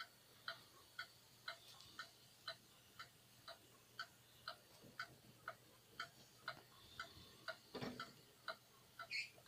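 Soviet ОЧЗ Jantar pendulum wall clock ticking evenly, two ticks a second: the clock is running. About eight seconds in, a hand touching the dial makes a brief rubbing knock.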